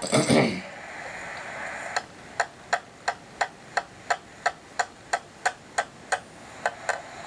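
A claw hammer tapping nails into a wooden board in quick, even strikes, about three a second, with a short pause near the end. A brief louder noise comes at the very start.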